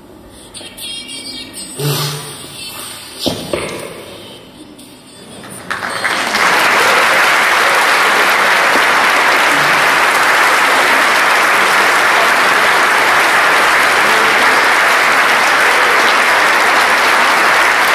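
Loud, steady applause that starts about six seconds in and keeps up without a break; before it, faint room sound with a couple of knocks.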